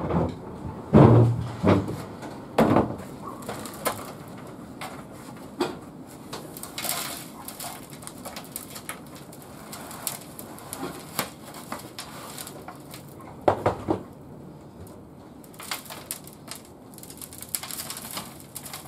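A black plastic plant pot being knocked and worked to free an aloe vera's root ball, with potting soil spilling and crumbling onto a metal baking tray. Several dull thumps come in the first few seconds and a couple more past the middle, with light scattered rattles of falling soil between.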